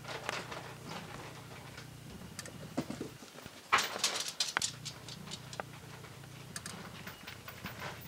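Rustling and clicking handling noise as the camera is swung around, with a louder rustling burst a little under halfway through.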